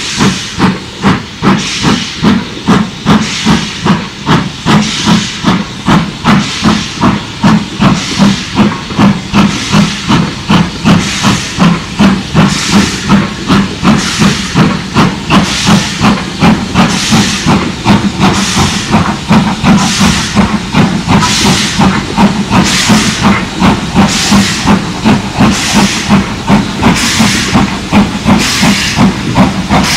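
BR Standard 4MT 2-6-4 tank steam locomotive No. 80072 working hard as it passes, its exhaust chuffing in a steady, loud beat about twice a second with hiss of steam.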